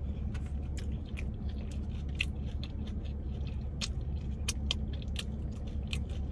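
Close-miked open-mouthed chewing: irregular wet smacking clicks of a mouthful of food being chewed, over a steady low hum.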